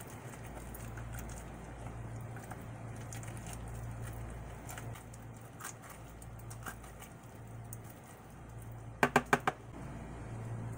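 A spoon scraping pineapple pulp out of the shell into a plastic pitcher: faint scrapes and small ticks over a steady low hum. About nine seconds in come four quick, loud knocks.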